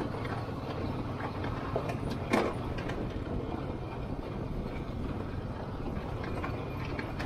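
ATV engines running with a steady low rumble, with one sharp click or knock about two and a half seconds in.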